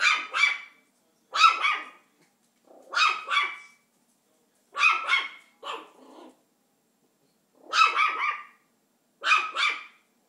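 Havanese puppy barking in repeated bursts, about seven in all, each of two or three quick barks, with short silences between.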